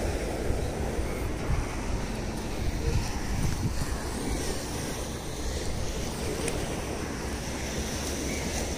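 Steady wash of sea surf with wind buffeting the microphone.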